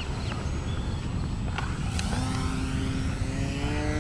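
Electric RC model warplane's motor and propeller whine coming in about two seconds in, a steady tone that rises slowly in pitch, over a steady low rumble.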